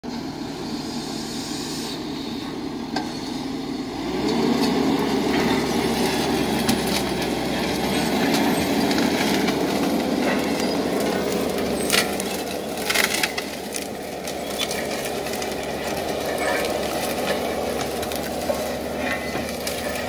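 Forestry forwarder's diesel engine running under load as it drags a pair of toothed disc trenchers through the forest floor to prepare the soil for replanting. It gets louder about four seconds in, with a few sharp cracks of snapping wood around the middle.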